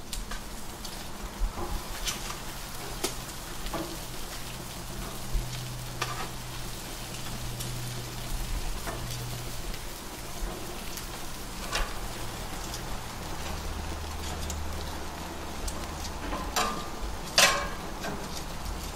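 Slices of bread brushed with butter and olive oil sizzling on a hot gas grill's grates, with scattered clicks of metal tongs on the grates and one loud click near the end. A low steady hum runs underneath.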